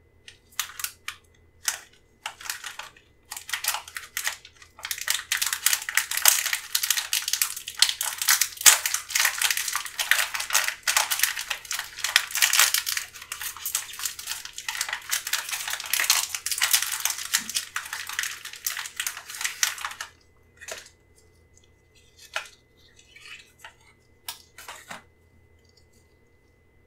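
Sealed plastic pouch of an HP 667 ink cartridge being torn open and crinkled by gloved hands: dense crackling and tearing, heaviest through the middle. It stops suddenly, and a few scattered handling clicks follow near the end.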